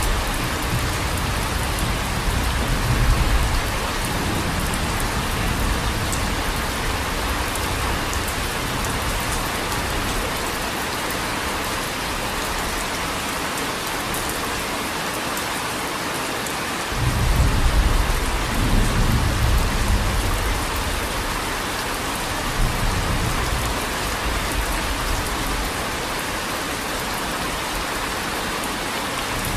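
Steady rain falling, with low rolls of thunder through it: one in the first few seconds, and a longer roll that comes in suddenly about seventeen seconds in.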